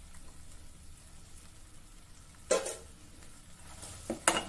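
Wooden spatula stirring a thick moong dal mixture in hot ghee in a pot, with a faint sizzle over a low steady hum. A short sharp scrape comes about halfway through, and a couple of clicks come near the end.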